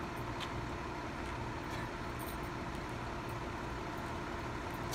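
Fire engine idling steadily, with a few faint ticks over the drone.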